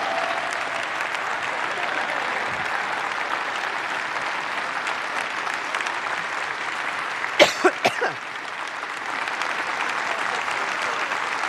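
Large conference audience applauding steadily. About seven and a half seconds in, four sharp sounds come in quick succession, briefly louder than the clapping.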